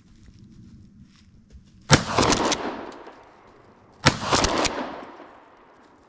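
Two close shotgun blasts about two seconds apart, fired at deer, each followed by about a second of echo rolling away.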